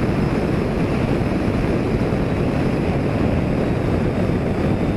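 Strong wind blowing steadily across the microphone, a dense low rushing noise.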